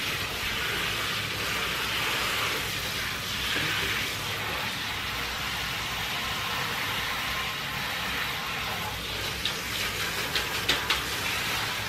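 Handheld shower spray running steadily onto a wet dog's coat in a bathtub, rinsing out the shampoo. A few light clicks or taps come near the end.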